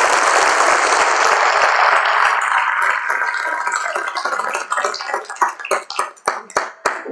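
Audience applause, dense at first, then thinning to scattered individual claps over the last few seconds as it dies away.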